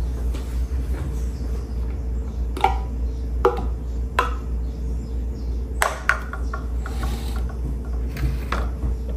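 About six sharp knocks and clinks at irregular intervals, a few with a short ring, over a steady low hum.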